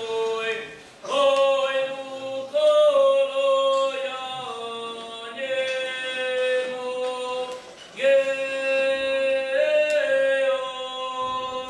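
A boy singing a traditional Croatian folk song solo and unaccompanied, in long held notes that step between a few pitches. There are short breaks for breath about a second in and again near eight seconds.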